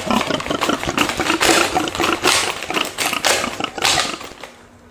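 A person sucking air hard through a toy pig-snout nose piece in a run of quick, noisy breaths, trying to lift small plastic fruit pieces by suction. The breathing stops about half a second before the end.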